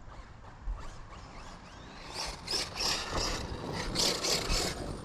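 Arrma 6S RC basher truck driving on loose dirt, its tyres scrabbling and spitting gravel in irregular bursts from about two seconds in.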